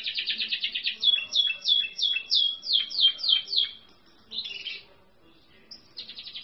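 Spanish Timbrado canary singing: a fast trill, then a run of repeated downward-sliding notes, about three a second. After a short pause comes a brief burst, and another fast trill starts near the end.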